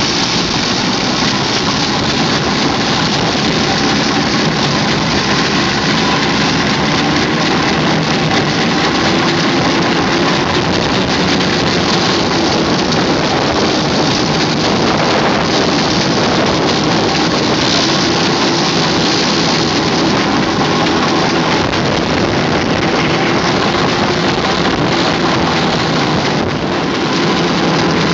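Steam ploughing engine working, a loud steady dense noise with a faint wavering hum running under it.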